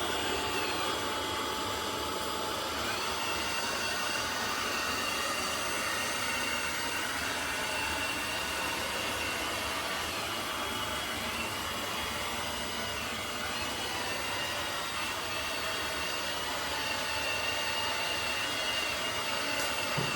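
eufy X10 Pro Omni robot vacuum and mop running steadily while it mops: even motor and fan noise with a faint, slightly wavering high whine.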